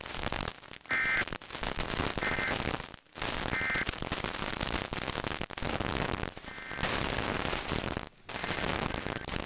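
Crackling radio static with brief dropouts. About a second in come three short two-tone digital data bursts, about 1.3 s apart, typical of the EAS end-of-message signal that closes a weather warning broadcast.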